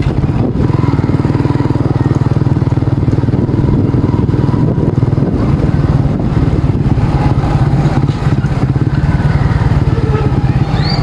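Motorcycle engine running steadily under way, with a fast, even low pulsing, over wind and road noise.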